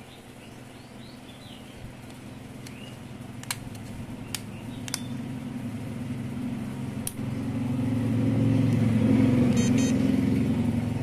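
A motor vehicle's engine, growing louder over several seconds and loudest near the end. A few sharp plastic clicks come in the middle, as the Galaxy SmartTag's back cover is pressed into place.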